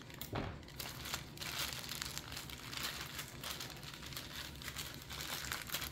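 Plastic bag of brown sugar and cinnamon topping crinkling as it is opened and handled: faint, irregular rustles.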